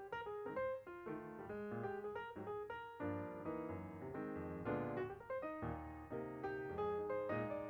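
Background piano music: a melody of quick, separate notes over lower chords.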